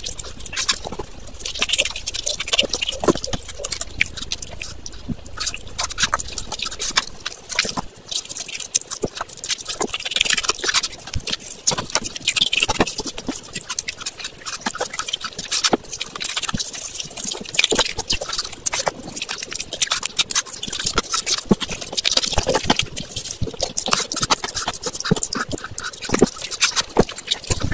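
Close-miked wet eating sounds of fish curry and biryani: chewing and lip smacking in a dense stream of small clicks and squelches, with rice and curry squished by hand.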